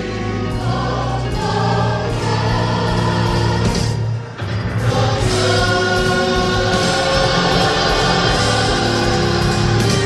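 Gospel choir singing sustained chords over a steady low bass, with a brief dip in loudness about four seconds in.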